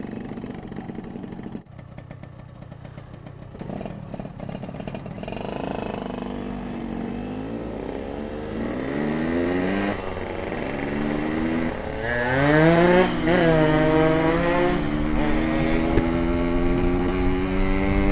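Yamaha RX-King's two-stroke single-cylinder engine running under the rider, quiet at first and then accelerating through the gears: its pitch climbs, drops back twice at the gear changes, then rises steadily and grows louder.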